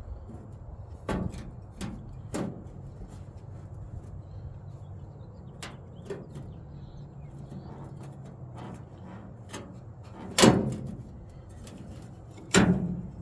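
Sheet-metal patch panel being handled and fitted against the truck bed: scattered light knocks and taps, then two louder metal clanks with a brief ring near the end.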